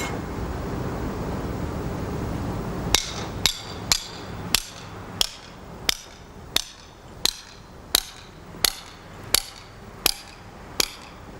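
Hammer driving an iron steeplejack's dog (holdfast hook) into a chimney's brickwork: about thirteen sharp metal-on-metal strikes at an even pace of roughly one and a half a second. They start about three seconds in, after a stretch of steady low background noise.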